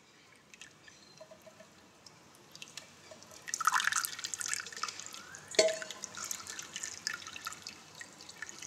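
Water dripping and trickling: a few faint drips at first, then busier drips from about three and a half seconds in, with one sharper drip about five and a half seconds in.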